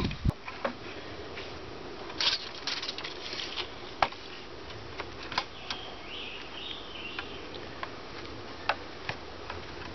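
Steel tape measure being pulled out along a wooden board with a short rattling run, followed by scattered light clicks and taps as the tape and boards are handled.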